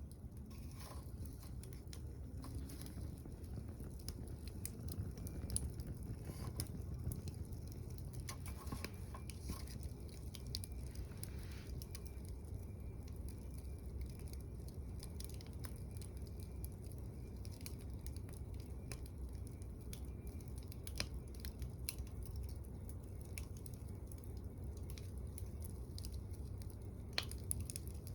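Wood fire burning in a small camp wood stove with secondary combustion: a steady low rush of flame with scattered crackles and a few sharp pops from the burning wood.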